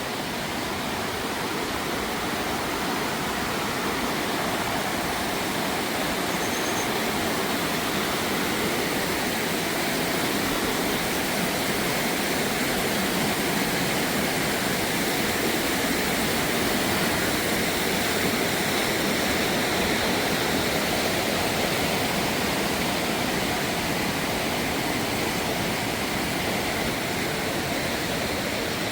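Rushing water of a mountain river, a steady even rush of noise with no breaks.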